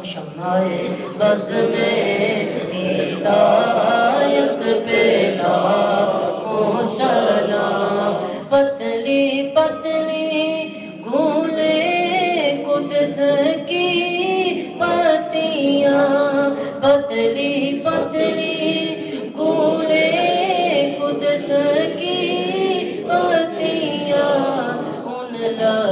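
A group of voices singing an unaccompanied Urdu devotional salam, praise of the Prophet, with long drawn-out held notes.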